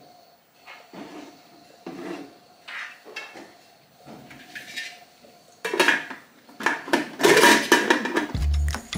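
Wooden spoon stirring in a steel cooking pot, a soft scrape about once a second. Louder metal clatter follows as the lid is handled and set on the pot. Music with a heavy bass beat starts near the end.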